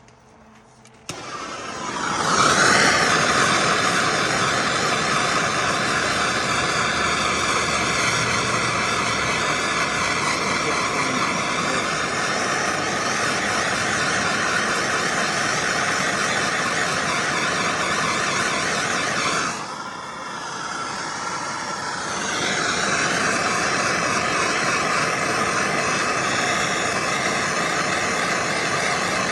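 Electric heat gun switched on about a second in and running steadily with a fan whine, shrinking heat-shrink tubing over a freshly crimped wire splice; it drops briefly about two-thirds of the way through, then runs on.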